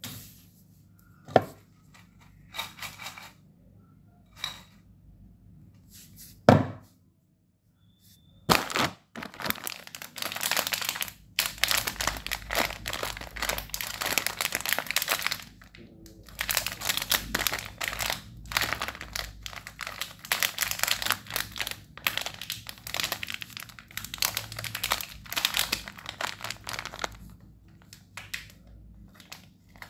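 Plastic wrapper of a Dark Fantasy biscuit packet crinkling as it is handled and squeezed in the hands, in long crackly stretches with short pauses from about eight seconds in. Before that there are a few isolated sharp knocks.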